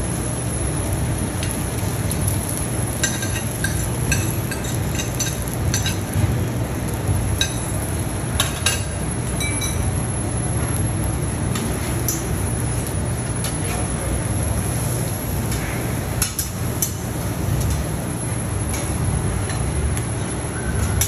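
Eggs frying on a flat-top griddle over a steady low hum, with scattered clicks and clinks of a metal spatula and utensils.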